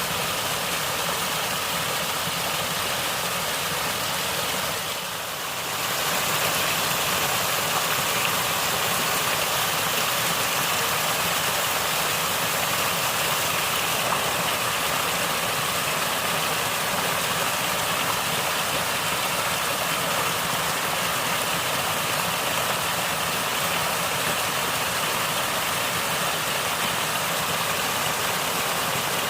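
Natural flowing water gurgling and rushing in a steady stream, dipping briefly in level about five seconds in.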